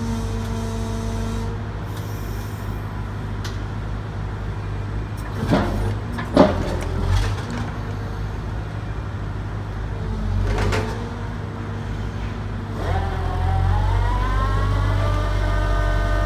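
Caterpillar M315 wheeled excavator's diesel engine running steadily, with two sharp knocks about five and a half and six and a half seconds in. From about thirteen seconds a whine rises in pitch and then holds.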